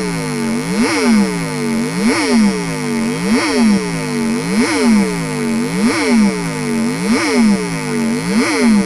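Homemade PIC-microcontroller electronic siren sounding a police-escort siren tone: a harsh electronic note that sweeps down and back up in pitch, repeating about once every second and a quarter.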